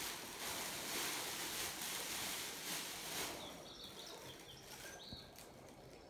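Thin plastic bags rustling and crinkling for about three seconds as they are handled, then fading; after that, faint short high-pitched chirps.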